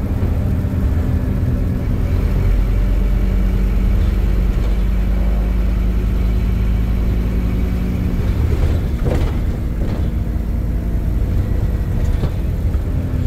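Scania Visionaire double-decker bus driving, its engine rumbling steadily as heard from inside the upper deck. The engine note holds steady, then changes about eight seconds in, and there is a brief clatter about nine seconds in.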